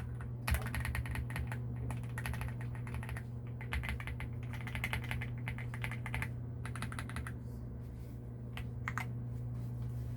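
Typing on an AULA F99 mechanical keyboard: fast runs of key clicks in several bursts, thinning out to a few single keystrokes near the end.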